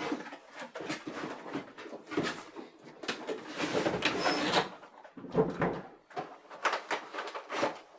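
Cardboard and plastic toy packaging being handled and opened: irregular rustling and scraping with small knocks.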